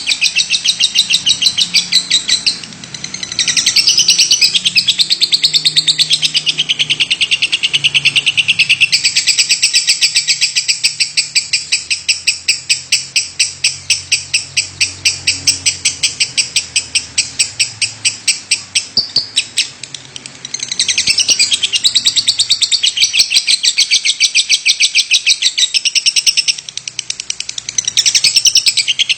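Lovebird singing a long, nearly unbroken chattering trill of rapid, sharp high chirps, many a second. It is the nonstop song that Indonesian keepers prize in a 'gacor' bird. The trill drops away briefly three or four times and picks straight up again.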